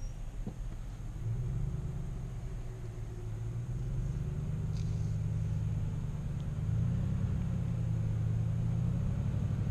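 Car engine and road noise while driving: a steady low hum that gets louder about a second in and again around seven seconds in.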